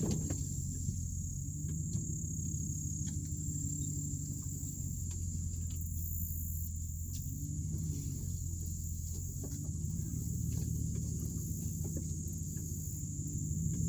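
Dodge Ram pickup's engine running at low speed, heard from inside the cab, its pitch rising and falling a little as the truck creeps along a rough woodland path. Scattered light clicks and knocks come from the truck moving over the uneven ground, over a steady high-pitched whine.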